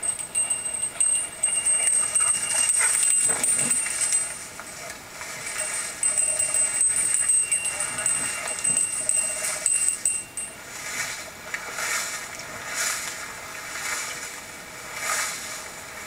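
A bird dog's collar bell jingling on and off as the dog hunts, with rustling swishes of footsteps through tall dry grass in the second half.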